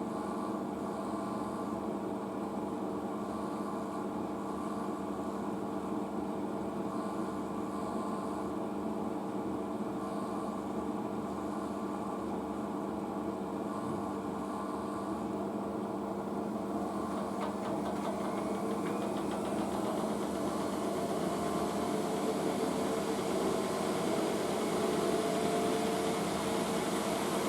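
Asko washing machine starting a spin between rinses: a steady motor hum with a whine. From about two-thirds of the way in, the pitch rises and it grows louder as the drum speeds up.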